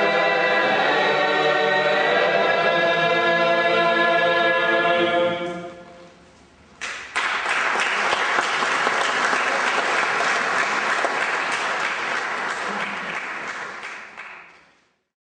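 A choir singing Glagolitic folk church chant, holding a final chord that dies away about five seconds in. After a short pause an audience applauds, and the applause fades out near the end.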